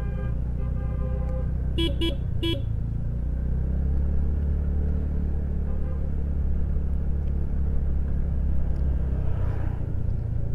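Steady low rumble of a motorcycle on the road, with a vehicle horn beeping three times in quick succession about two seconds in.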